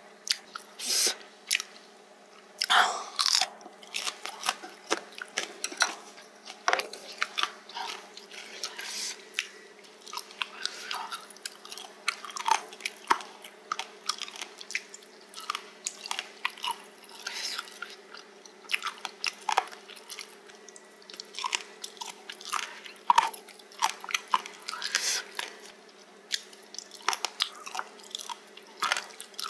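Close-miked chewing of spicy pork cartilage (odolbyeo), with irregular crisp crunches as the cartilage is bitten through.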